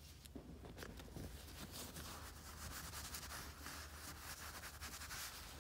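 Terry-cloth towel rubbing over a polished steel knife blade: a faint scuffing of quick strokes, wiping a smudge of wax off the blade.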